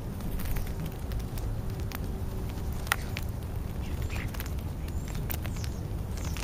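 A few short, faint whistling calls and scattered light clicks from European starlings at a feeding spot, over a steady low outdoor rumble.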